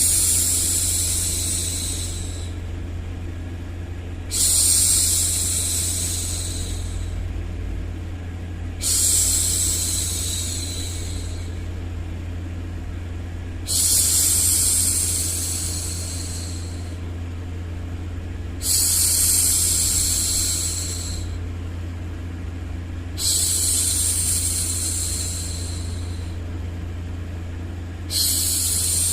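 A woman's long hushing "shhh" sounds, each starting sharply and fading out over two or three seconds, repeated about every four and a half seconds. A steady low hum runs underneath.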